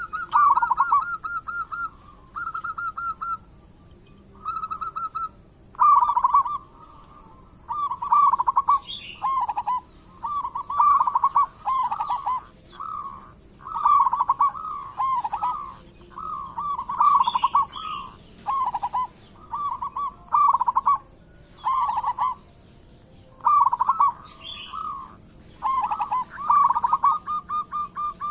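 Zebra dove (perkutut) cooing: short rolling phrases of rapid staccato coos, repeated every second or two, with faint higher chirps here and there.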